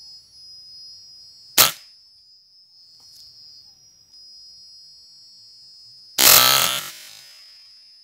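A single sharp air-rifle shot about a second and a half in. About six seconds in comes a louder noise lasting under a second.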